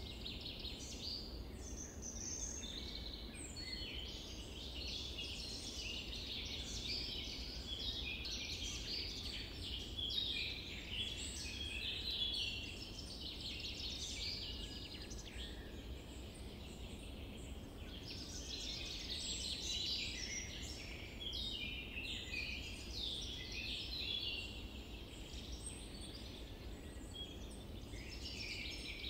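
A dense chorus of many small birds chirping and twittering together. It thins out about halfway through and swells again, over a steady low rumble.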